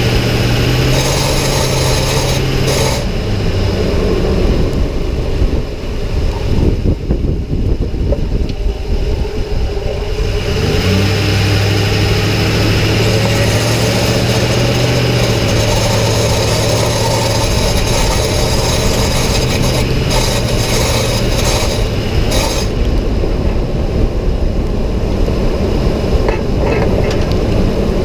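2006 Ford F-150 under way, with a steady low drone that drops away for several seconds and then comes back. The owner hears this noise only on the accelerator: it starts around 1200 RPM and grows louder with throttle and speed.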